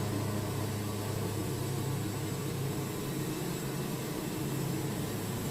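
Engine of a Wood-Mizer portable band sawmill running at a steady pitch, a constant low hum with no cut or change in load.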